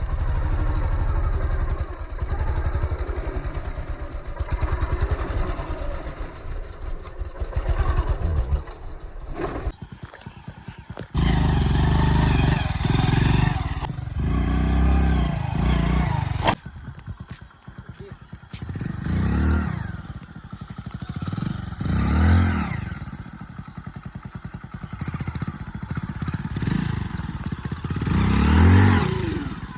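Hero Splendor Plus motorcycle's small single-cylinder four-stroke engine running and being revved, in several clips joined with abrupt cuts. In the second half it revs up and back down about four times.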